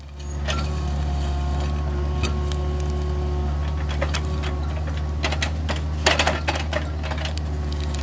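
Kubota mini excavator's diesel engine running steadily under load while its steel rake attachment tears through soil and pine branches. Scattered cracking, scraping and metallic clinks come from the tines, busiest a little after the middle.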